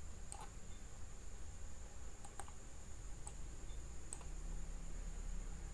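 About four scattered clicks of a computer mouse and keyboard, over a steady low hum.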